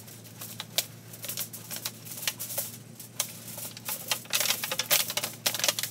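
Hands patting raw pork dry with a paper towel in a disposable aluminium foil pan: irregular crinkles and light taps of paper and thin foil, thickest about four and a half seconds in.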